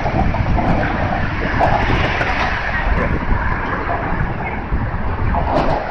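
Steady rush of road traffic on the Brooklyn Bridge roadway beneath the promenade, mixed with wind buffeting the microphone.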